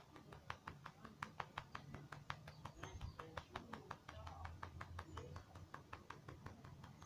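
A hand patting a cat's back and rump in quick, even taps, about five or six a second.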